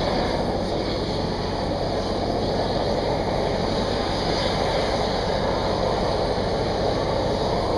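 Hot air lance running with a steady rushing blast of heated compressed air, drying moisture out of concrete joints before crack sealing.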